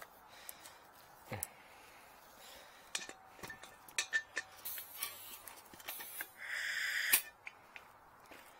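Light clicks and taps of a tyre-inflator gun with a dial gauge being worked onto the air valve of an expansion tank. About two-thirds of the way in comes a short hiss of air as the chuck is pressed on to read the tank's pre-charge pressure.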